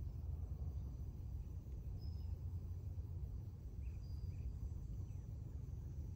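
Rural trackside ambience with a steady low rumble and a few faint, short high chirps about two and four seconds in.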